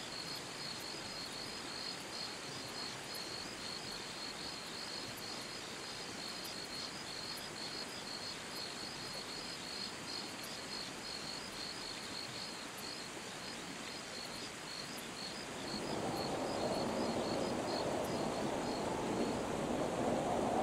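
Crickets chirping in a steady, pulsing chorus. From about sixteen seconds in, the even rush of a river joins underneath them.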